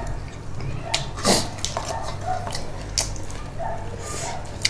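A person eating: chewing and mouth sounds, with scattered sharp clicks and a few short noisy bursts.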